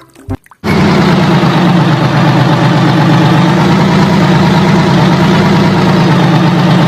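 A heavy engine idling steadily and loudly. It starts abruptly about half a second in and cuts off near the end.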